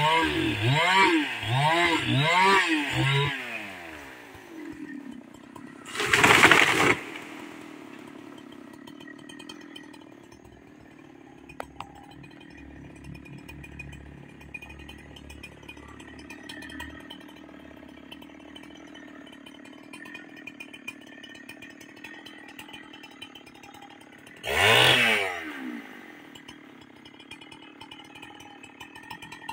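Chainsaw cutting at the base of a tree, revved in quick bursts about twice a second, then dropping to a low idle after about three seconds. A loud crash about six seconds in as the tree comes down, and one more brief rev of the idling saw near the end.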